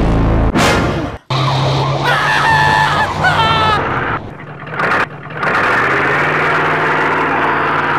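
Cartoon vehicle sound effects for a speeding van: a high, wavering screech about two to three and a half seconds in, then from about five and a half seconds a steady, loud rush of the vehicle driving at speed.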